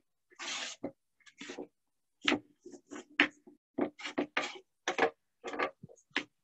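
Rocks being set down and shifted on a glass tabletop: a string of short clacks and knocks, with a brief rustle about half a second in.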